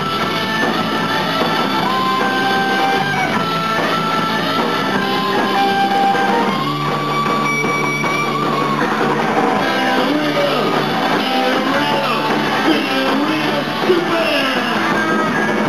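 Live rock band playing loudly, electric guitar to the fore with sustained notes, one high note held for about two seconds midway.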